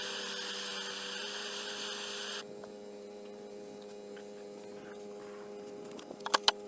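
Handheld blowtorch hissing as its flame heats a knife blade, shut off abruptly about two and a half seconds in. A steady electrical hum carries on underneath, with a few sharp clicks near the end.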